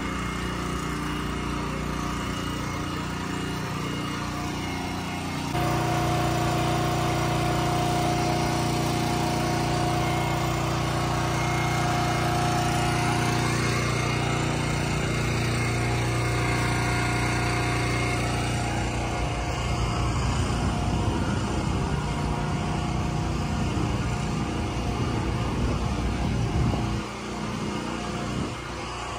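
Engine of construction machinery running steadily, a droning hum that gets louder about five seconds in and turns into a rougher low rumble in the second half.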